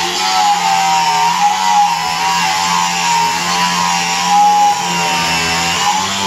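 Electric angle grinder with a wire cup brush scouring rust off a cast-iron cauldron lid: a steady motor whine whose pitch wavers slightly as the brush is pressed and moved, over a harsh scratching hiss.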